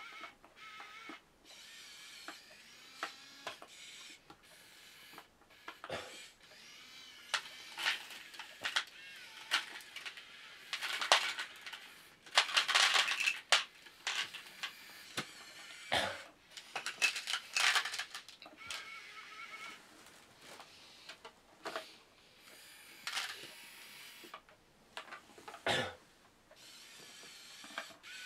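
Small electric motors and gearboxes of a 1/50 scale radio-controlled Komatsu PC1250-8 excavator model whirring in bursts as it works, with clicks and rattles throughout, busiest in the middle.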